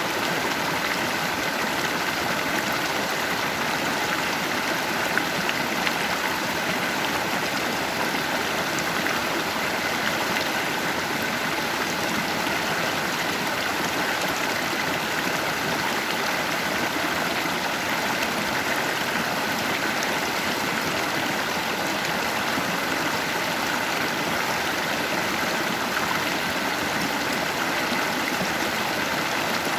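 Stream water running in a steady, unbroken rush.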